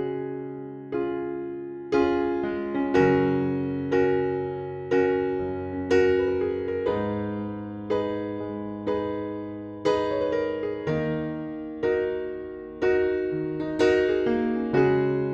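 Background music: a gentle electric piano playing sustained chords, struck about once a second and fading between strikes.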